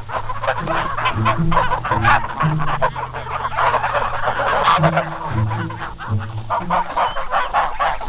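A flock of domestic geese honking, many calls overlapping throughout, with background music underneath.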